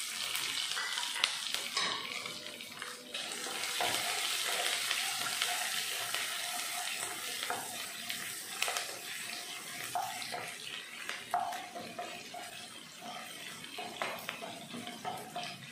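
Chopped carrots and green chillies sizzling in hot oil in a nonstick pan, with a wooden spatula scraping and knocking as the vegetables are stirred. The hiss eases off somewhat in the second half.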